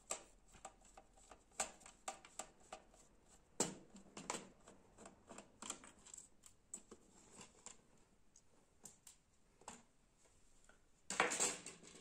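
Scattered light clicks and taps of small plastic laptop parts being handled and fitted, with a louder scraping rustle near the end.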